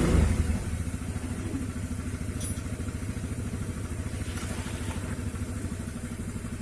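Honda Vario scooter's single-cylinder engine settling from a brief rev about half a second in to a steady idle, test-run after a CVT repair.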